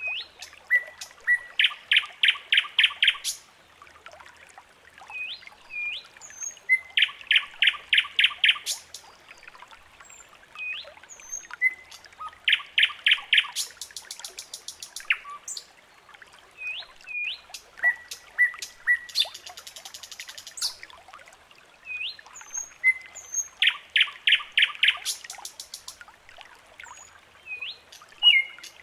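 Birds singing: a loud song phrase of five or six quick, evenly spaced notes comes four times, with short rising chirps and thin high calls between the phrases.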